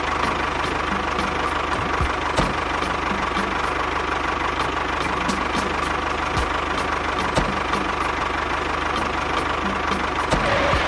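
An engine running steadily at idle with an even, regular knock.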